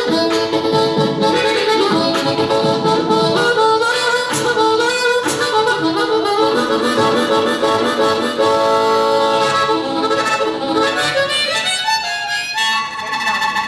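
Harmonica played over beatboxed mouth percussion, a rhythmic chordal groove. Near the end the percussion stops and the harmonica holds a steady chord.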